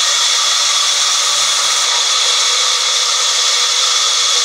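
Large vertical band saw ripping a wooden slab lengthwise: a loud, steady hiss of the cut with a constant high whine over it.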